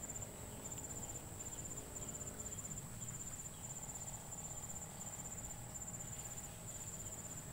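Crickets chirping: a faint, high trill in repeated short bursts with brief gaps between them.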